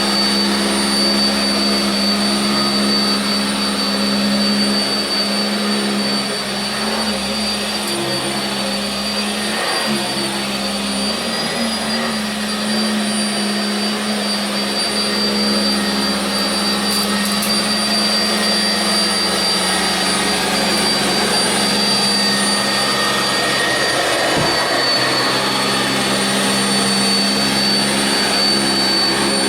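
Sanitaire SC679j upright vacuum cleaner running steadily while being pushed over carpet: a constant motor hum under a high, even whine, with small dips and wavers in level as it moves.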